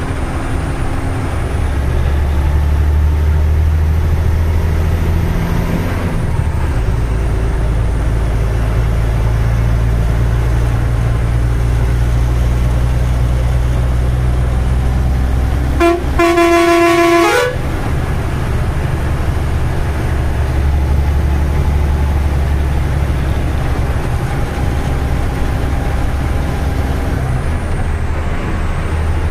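Tata 3118 twelve-wheeler truck's diesel engine running under way, heard from inside the cab as a steady low drone. About sixteen seconds in, a horn sounds once for about a second and a half.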